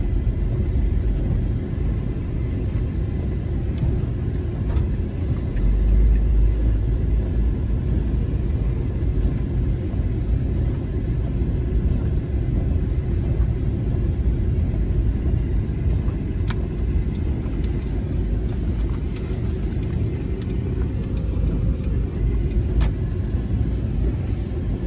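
Car running, a steady low rumble with a few faint clicks in the second half.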